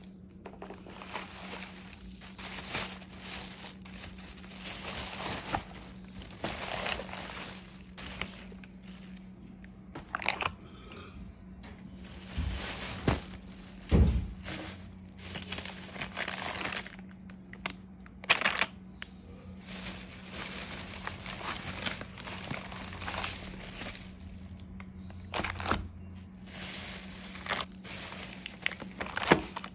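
Crinkling and rustling of packaging being handled, in irregular bursts, over a steady low hum, with a couple of low knocks near the middle.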